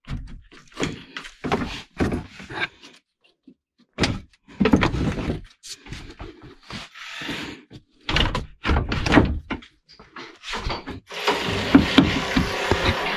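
Irregular knocks, thunks and scrapes of a radiator and its plastic and metal mounting parts being shifted and worked loose by hand. From about eleven seconds in, a steady rushing noise with small clicks runs underneath.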